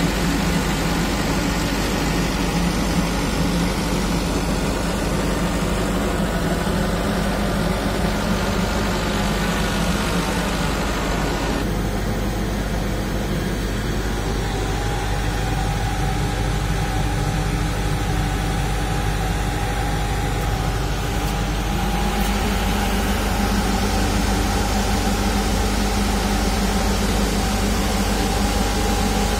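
Mahindra Powerol diesel generator set running with a steady drone. Its tone shifts slightly twice, and a steady higher whine joins in about halfway through.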